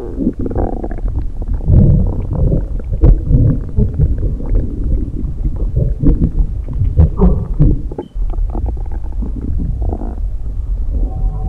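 Stomach rumbling: a continuous low churning with irregular gurgles and small pops. It drops away briefly about eight seconds in.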